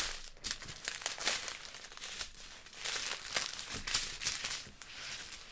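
Small plastic zip bags of resin diamond painting drills crinkling and rustling as they are handled and shuffled across a table, in irregular crackles.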